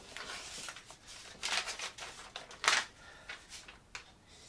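Paper and cardboard rustling and scraping in short bursts as a booklet is pulled out from inside a cardboard box, the loudest scrape a little past halfway.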